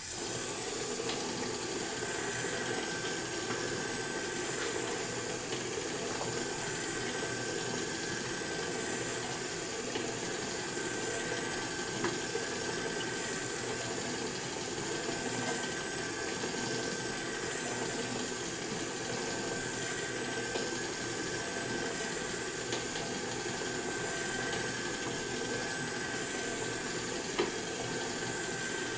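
Motorized kinetic sculpture running: its electric drive motors, spinning shaft and propeller make a steady whirring hum with a thin high whine. It starts abruptly and runs evenly, with a few faint clicks.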